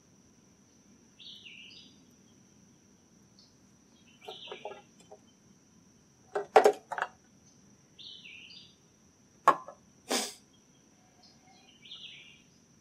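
Sharp clicks and knocks of a replacement chain being worked onto a chainsaw bar, the loudest coming in a cluster a little past the middle. A bird calls four times at even intervals, a short falling note each time, over a faint steady high whine.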